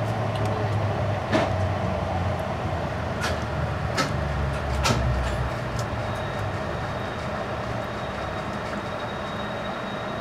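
Amtrak Pacific Surfliner passenger train heard from inside the car as it slows into a station: a steady running rumble with a few sharp clicks in the first half. From about six seconds in a thin, steady high whine joins as the train comes nearly to a stop.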